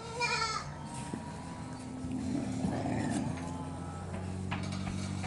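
A puppy gives a short, high, wavering yelp, followed by a low steady hum.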